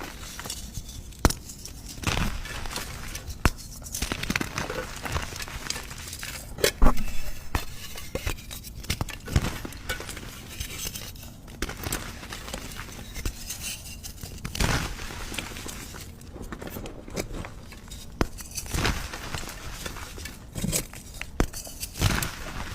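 Slime being squished and stretched, with a run of crackling clicks and pops at irregular intervals.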